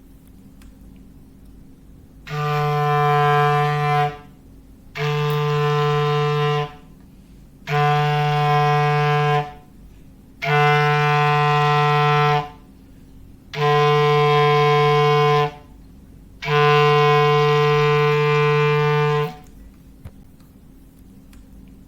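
Clarinet imitating a foghorn: six long, low blasts of the same note, each about two seconds with short pauses between, the last held a little longer.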